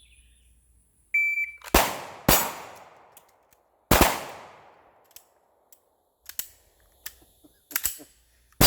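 An electronic shot timer beeps once, then pistol shots ring out at steel targets: two in quick succession, a third about a second and a half later, and the loudest near the end. Between them come quieter clicks and clanks of gun handling during a reload and a pistol malfunction.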